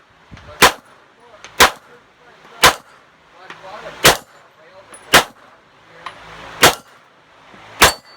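Glock 17 9mm pistol firing 147-grain American Eagle rounds: seven sharp shots about a second apart, a timed string of fire.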